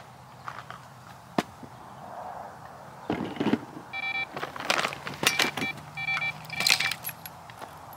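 Electronic carp bite alarm beeping in four short runs, signalling a take on the rod, mixed with rustling and footsteps as the rod is grabbed.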